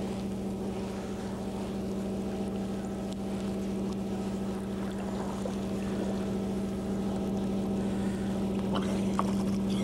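An engine running steadily at one constant pitch, a low even hum.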